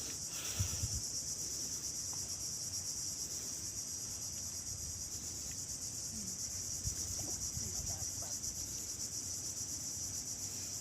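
Steady, high-pitched insect chorus, a continuous shrill drone that neither rises nor falls.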